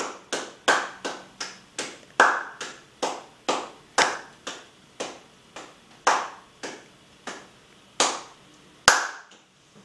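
Hands clapping in a regular rhythm, at first about three claps a second and gradually slowing, ending with one loud clap.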